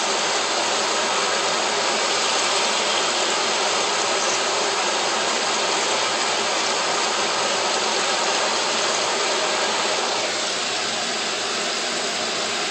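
Kitchen range hood exhaust fan running with a steady rushing hum, easing slightly about ten seconds in.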